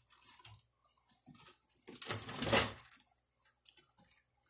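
Scattered crackling and rustling handling noises, with one louder burst of noise about two seconds in that lasts under a second.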